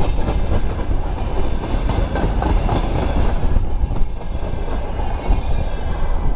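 Freight train of covered hopper wagons rolling past close by, wheels clattering over the rail joints with a heavy rumble. The higher clatter thins out about three and a half seconds in as the last wagon goes by.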